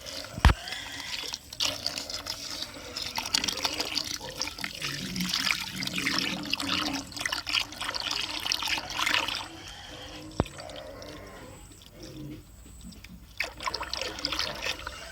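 Water being poured and worked into dry pig starter feed to soak it, splashing and sloshing, with a sharp knock just after the start. It grows sparser after about nine seconds.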